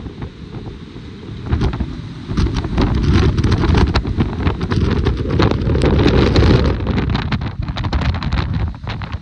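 Storm wind, gusting to around 55 knots, buffeting the microphone on a sailing ship's open deck: a heavy low rushing noise with many crackles, building about two seconds in and easing near the end.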